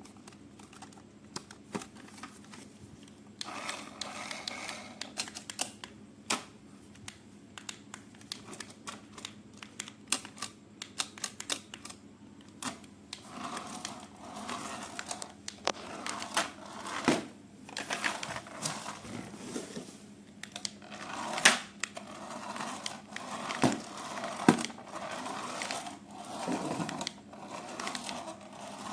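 Toy packaging being opened and handled: scattered sharp clicks and taps with stretches of crinkling plastic and cardboard, busier from about halfway through.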